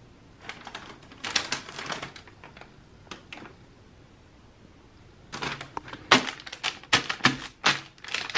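An empty foil-lined Kkobuk Chip snack bag crinkling as it is handled, in two bouts of sharp crackles: a short one about half a second in and a louder, denser one from about five seconds in as the bag is pressed flat.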